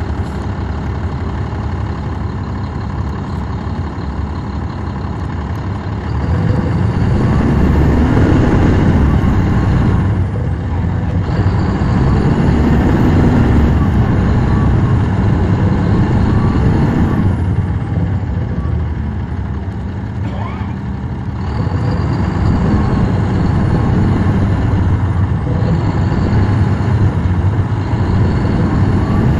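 Caterpillar C13 ACERT straight-six diesel of a NABI 40-foot transit bus, heard loud from the rear seats, pulling hard as the bus gets under way. It eases off briefly twice, drops to a lull about twenty seconds in, then pulls again, with a high whine rising and falling with each pull.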